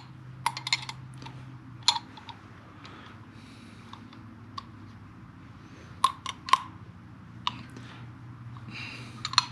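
Irregular sharp clicks and taps of a wrench and small metal parts as a nut is tightened down against a turn-signal bracket, a few single clicks and short clusters, over a faint steady hum.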